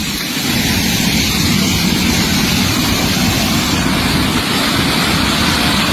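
Raging floodwater in a swollen river, a steady, loud rushing noise without let-up.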